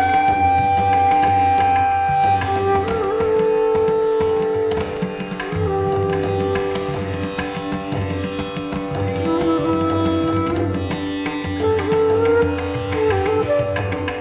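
Meditation music: a slow melody of long held notes that bend and slide, over a steady drone.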